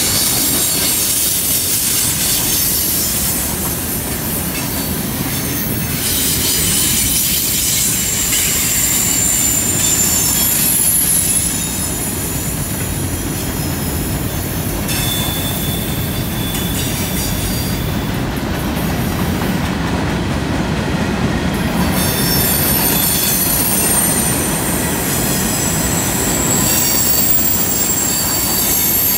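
Freight cars rolling past on a curve: steel wheels rumbling on the rail, with high-pitched wheel flange squeal in steady tones that come and go every few seconds.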